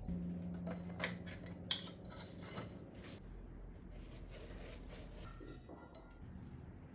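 Kitchen utensils and dishes clinking and knocking, with a couple of sharp clinks about one and two seconds in.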